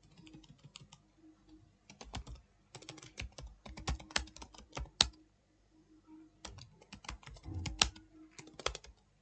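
Typing on a computer keyboard: runs of quick keystrokes with a pause of about a second midway.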